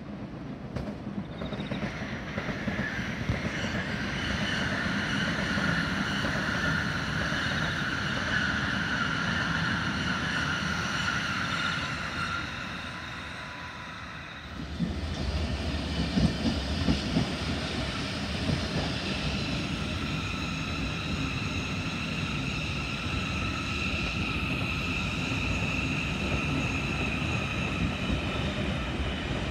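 Electric double-deck suburban trains running past at close range: wheel-on-rail rumble and clatter under a steady high whine. The sound eases off just before halfway, then a second, louder train passage picks up and continues.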